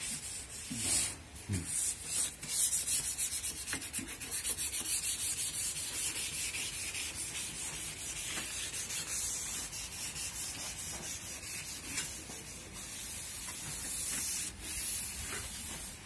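Hand sanding with a sanding block on a primed refrigerator door: quick, even back-and-forth scraping strokes. This is the smoothing of the primer, the last preparation step before the paint goes on.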